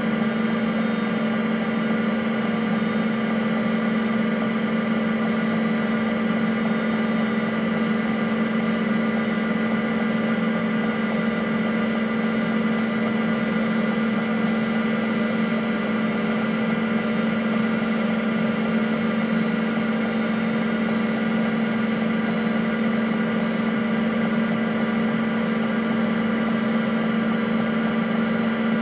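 IBM PC AT (5170) running: the steady whir and hum of its cooling fan and spinning Seagate ST-4038 MFM hard drive, with no change in pitch or level.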